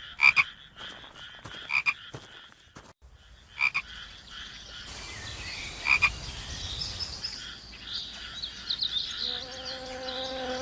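Frogs croaking in a rice paddy: short, separate calls every second or two. From the middle on, an insect buzz rises beneath them, and near the end a bee's steady hum comes in.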